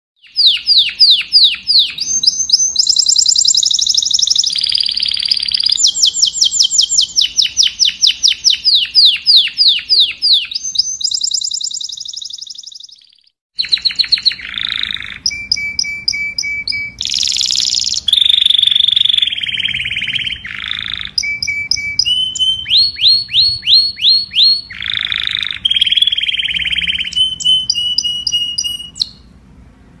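Domestic canary singing: a long song of rapid trills and rolls, each phrase a fast run of repeated high notes that changes every second or two. The song breaks off for about a second near the middle and stops shortly before the end.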